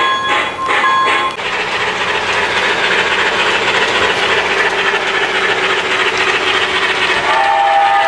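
Model trains running on a layout: a steady rush of wheels and running sound, opening with a short rhythmic ringing pulse. Near the end a model steam locomotive's chime whistle starts to blow, several tones held together.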